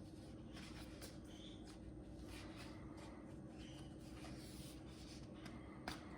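Faint rustling of paper pages being leafed through in a hardback book, with a soft tap near the end.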